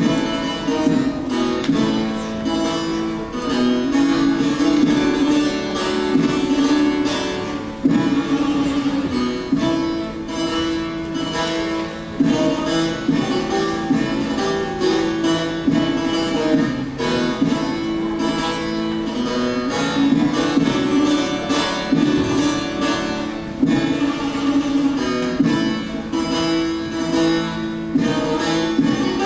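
Solo bağlama, the Turkish long-necked lute, played as a folk melody in a quick, steady run of plucked notes.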